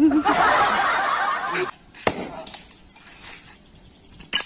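A man's voice, wavering in pitch, for about a second and a half, then two sharp clicks, one about two seconds in and one near the end.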